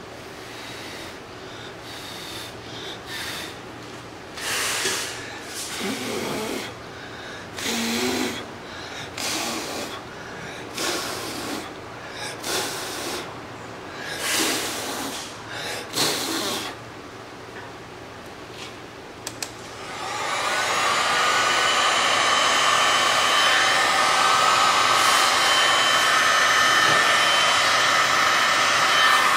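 A series of short bursts of rushing noise about a second apart, then a handheld heat gun is switched on about two-thirds of the way in, its fan motor spinning up with a rising whine and then running steadily with a loud rush of air over epoxy resin.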